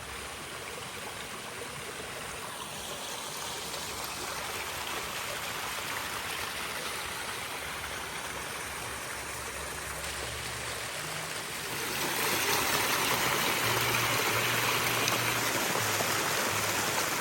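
Small waterfall with water rushing and splashing steadily; it becomes louder about twelve seconds in.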